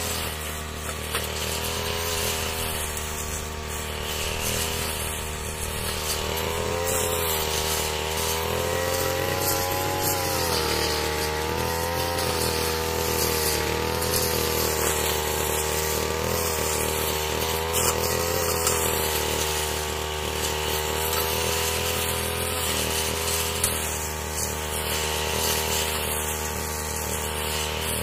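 Yamamax 338 Pro two-stroke backpack brush cutter engine running steadily. Its speed rises a little about nine seconds in, then settles back.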